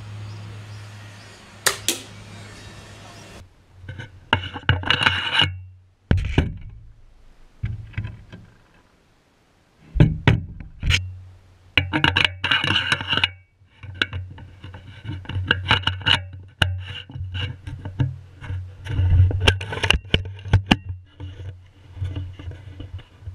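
Diana Model 1 smoothbore air rifle being shot and reloaded with lead balls: sharp clicks of shots among rattles and clatter from cocking and loading, in several separate bursts with abrupt breaks.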